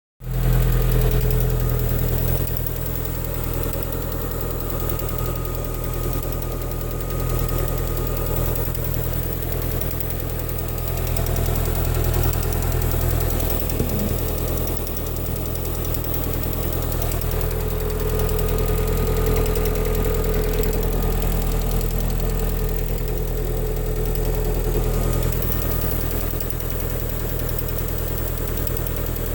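Lada Kalina 1.4 16-valve four-cylinder engine idling steadily with a strange knock. The owner cannot tell what it is and wonders whether the crankshaft counterweights are the cause.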